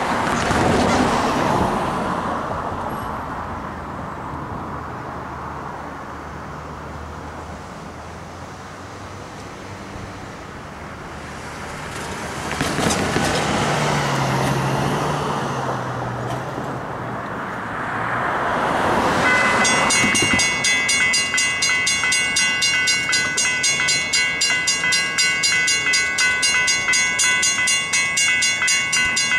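Cars drive across the crossing. About two-thirds of the way in, the crossing's General Signals Type 3 electronic bell starts ringing, a rapid even run of ringing strikes, as the warning signals activate for an approaching train.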